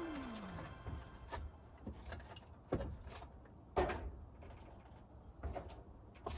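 A few scattered knocks and clicks from footsteps on terracotta roof tiles and tools being handled, spaced unevenly about a second apart. It opens with the last of a falling whoosh.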